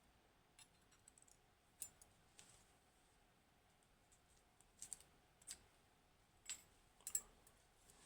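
Faint, scattered light clicks of metal tweezers picking pins out of a padlock's lock cylinder, about a dozen small ticks at uneven intervals.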